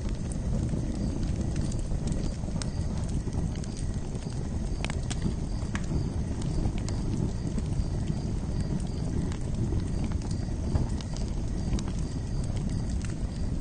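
Campfire crackling: a steady low rumble of burning wood with frequent scattered sharp pops and crackles.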